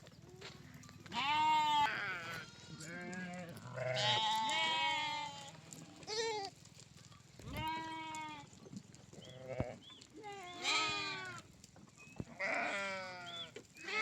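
Sheep and goats bleating, about eight separate calls in turn, some with a wavering, quavering pitch.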